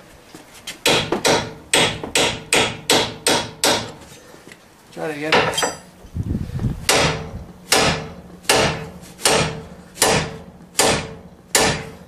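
Hand hammer striking a steel punch set against a lower ball joint, driving the old staked-in joint out of the steering knuckle. The blows are sharp and ringing, about three a second, in two runs with a pause of a few seconds between them.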